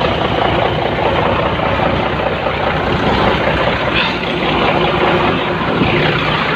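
Komatsu bulldozer's diesel engine running steadily at idle, with an even low throb.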